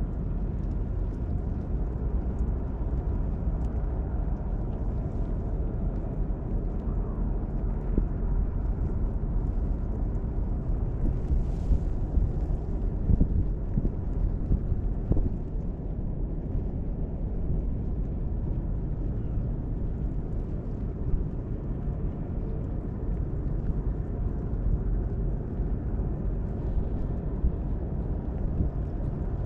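Steady low rumble of wind buffeting the microphone, with open outdoor waterside ambience.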